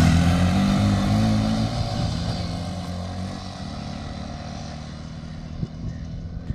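Two Hero Honda commuter motorcycles accelerating away together. Their engines are loud at first and fade steadily as the bikes ride off into the distance.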